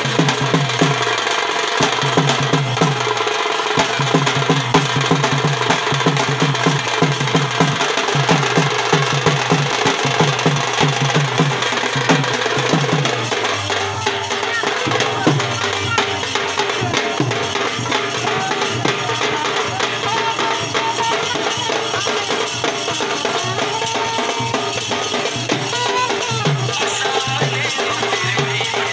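Rai folk-dance music: a drum keeping a quick, even beat with other percussion over it. The drum strokes stand out most in the first half and sink into the denser music after that.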